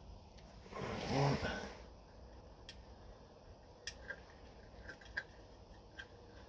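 About a second in, a brief throaty vocal noise from the mechanic. After it come several faint, sharp metallic clicks as small washers and nuts are fitted by hand onto the studs of the oil strainer cover plate on a 1968 VW Beetle 1500's air-cooled flat-four engine.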